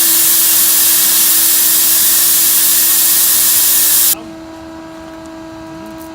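Combine harvester machinery running with a steady hum under a loud rushing hiss. About four seconds in, the hiss cuts off abruptly and the hum carries on much quieter.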